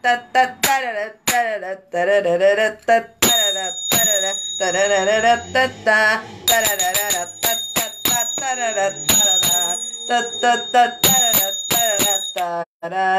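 A woman sings a melody on wordless syllables while playing sagats, metal finger cymbals worn on the fingers. Between and under the sung phrases come many sharp clinks and bright metallic ringing, some strokes ringing on for a second or more.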